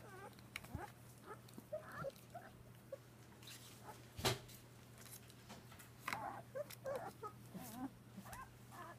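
Young puppies, almost five weeks old, whimpering and squeaking in short, high, wavering cries, coming thicker near the end. A single sharp knock sounds about four seconds in.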